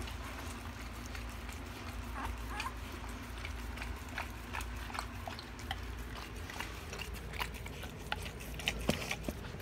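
Five-day-old pit bull puppies making a few short rising squeaks and small clicking, smacking mouth noises, over a steady low hum.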